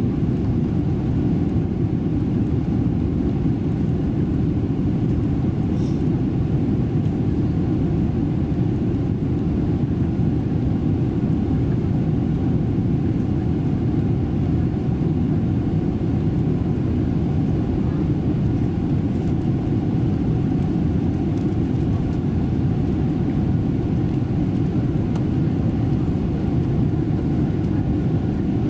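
Steady in-flight cabin noise of a Boeing 777-300ER: the deep drone of its GE90 engines and the airflow over the fuselage, heard from a window seat over the wing.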